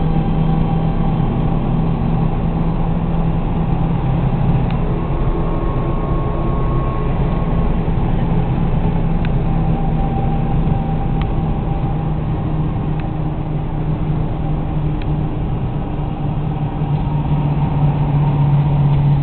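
Mazda 323F (BG) driving at highway speed, heard from inside the cabin: a steady engine drone mixed with tyre and road noise, growing a little louder near the end.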